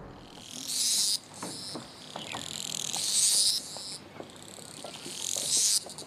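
A cicada singing in three high buzzing phrases, each about a second long, with short pauses between them.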